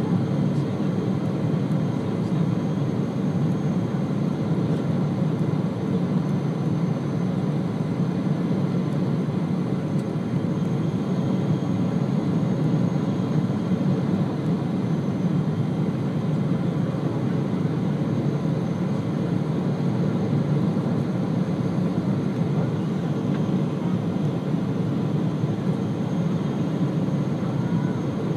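Steady cabin noise of a Boeing 777 jet airliner on final approach, from its jet engines and the airflow, heard inside the passenger cabin, with a faint steady high whine.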